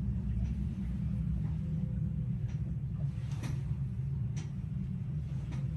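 A steady low rumble with a few faint, short clicks scattered through it, about five in all.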